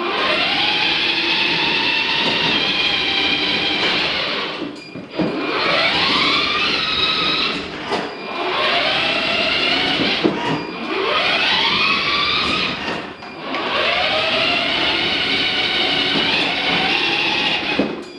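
Electric drive motors and gearboxes of a kids' battery-powered ride-on Mercedes G65 whining as the car drives under remote control. It stops and pulls away again about four times, and the whine rises in pitch each time it speeds up.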